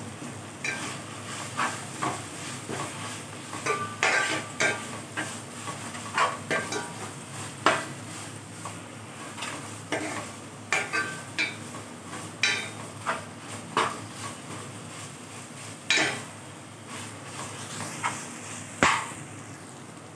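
A steel ladle scrapes and clinks irregularly against an aluminium pot while stirring chilli powder through amaranth leaves frying in oil, with a light sizzle underneath.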